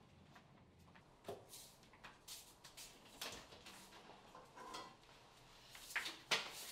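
Kitchen clatter: dishes and utensils knocking and clinking on a counter in a series of irregular taps, loudest twice near the end.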